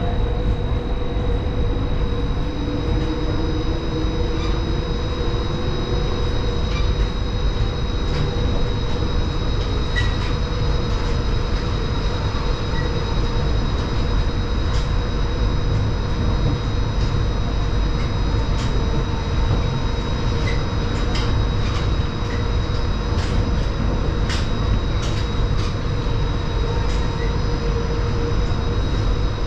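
Dubai's Palm Jumeirah monorail running, heard from inside the car: a steady rumble under a constant high whine and a mid hum, with a lower tone rising in the first few seconds and faint ticks here and there.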